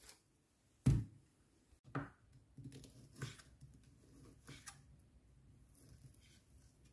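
A knife slicing through beef meatballs and tapping on a wooden cutting board: a handful of soft knocks and cuts. A single louder thump about a second in.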